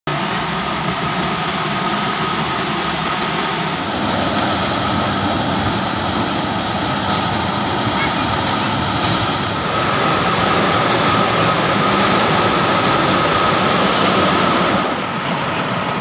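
Dafeng self-propelled corn harvester running while it cuts and picks standing maize: steady engine and machinery noise with a steady high whine.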